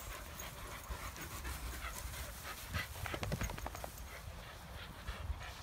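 A dog panting, with irregular short rustles and clicks.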